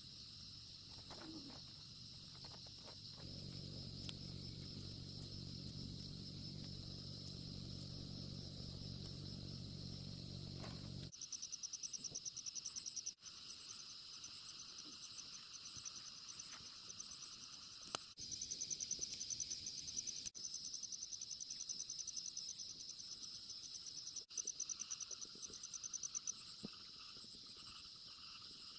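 Insects chirring steadily in a high, rapidly pulsing trill. For roughly the first ten seconds a low steady rumble runs underneath, then cuts off, and the trill comes through louder with a few abrupt breaks.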